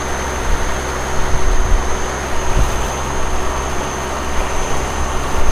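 Boat engine running steadily under way, a low drone over the rush of water and wind.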